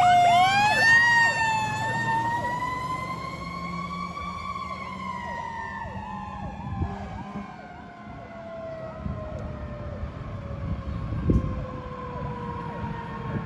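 Fire truck siren wailing as the apparatus pulls away: one long tone that climbs for the first few seconds, then falls slowly in pitch. It grows fainter early on, with a second siren's quick up-and-down sweeps fainter beneath it.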